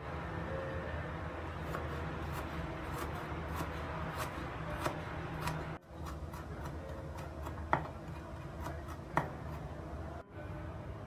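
Kitchen knife chopping peeled ginger on a plastic cutting board: quick, light taps, with two louder knocks in the second half.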